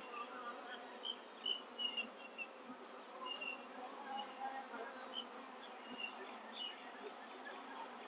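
Honeybees buzzing faintly around a frame lifted out of an open hive box: a steady hum with short, higher notes here and there.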